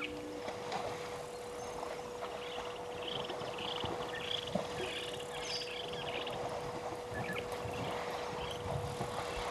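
African elephants wading and drinking in shallow water, with water sloshing and splashing around their legs and trunks, over a steady faint electrical hum.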